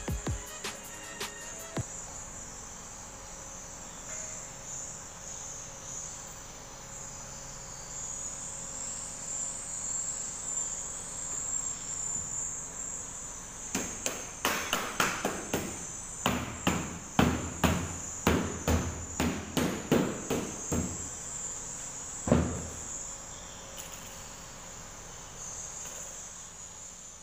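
A run of about twenty sharp knocks on an aluminium window frame being fitted together, coming unevenly about two a second in the middle of the stretch, with one louder knock near the end of the run. A steady high-pitched chirring goes on in the background throughout.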